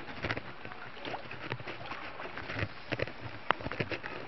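Muddy floodwater flowing, with irregular sharp splashes and knocks over it.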